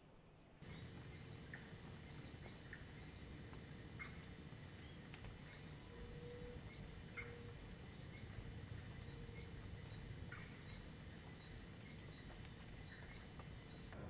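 Outdoor forest ambience that sets in abruptly about half a second in: a steady high-pitched insect drone throughout, with short chirps repeating about once a second over a faint low rumble.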